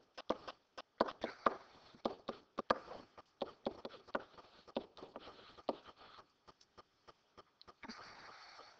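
Faint, irregular taps and scratches of a pen stylus writing on a touch surface, several a second.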